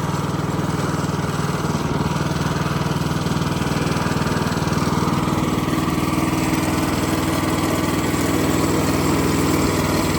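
Small gasoline engine running steadily at constant speed, with no rise or fall in pitch.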